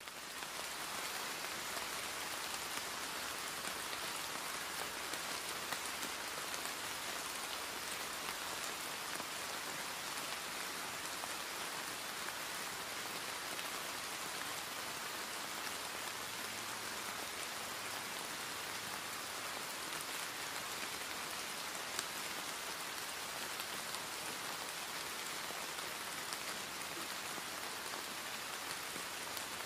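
Steady rain sound: an even hiss, strongest in the upper range, with a few faint drop ticks scattered through it.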